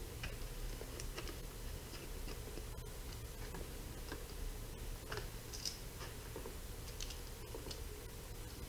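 Scattered small clicks and short crinkling rustles of hand work, as aluminium tape is cut and pressed onto the inside of a Lexan RC body shell, over a low steady hum.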